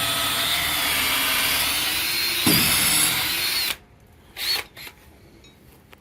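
Power drill running steadily as a larger bit bores a hinge-bolt hole into a wooden gate post, with a surge about two and a half seconds in. It stops suddenly a little before four seconds in, followed by a few light knocks.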